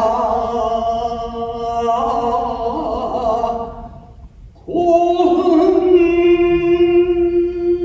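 Shigin, Japanese poetry chanting: a single voice holding long drawn-out notes, breaking off about four seconds in for a breath before starting another long held note.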